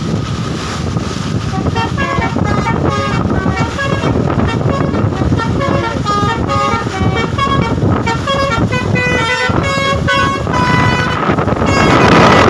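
Bus 'telolet' musical air horn playing a quick tune of short stepped notes, starting about two seconds in and stopping shortly before the end, over steady road and engine noise.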